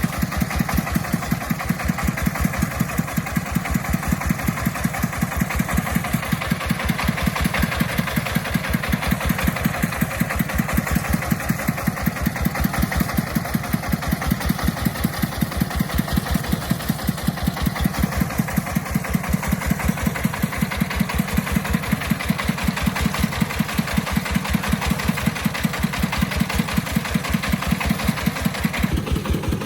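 Engine of a timber-hauling farm vehicle running steadily with an even, rapid beat; its tone changes just before the end.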